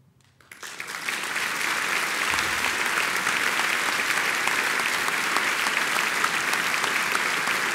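A large audience applauding: the clapping starts about half a second in, builds over the next second and then holds steady as a dense, even ovation.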